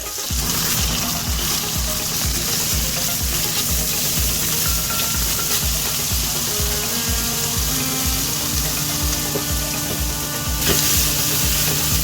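Pork neck frying in oil in a pan, a steady dense sizzle that starts abruptly and swells briefly near the end.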